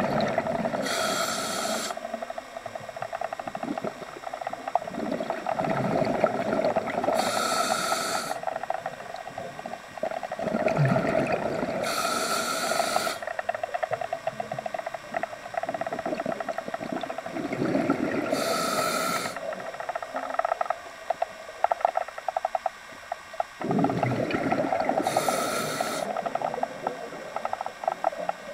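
A scuba diver breathing through a regulator underwater: five inhalations about six seconds apart, each a hiss lasting about a second, with exhaled bubbles gurgling in between.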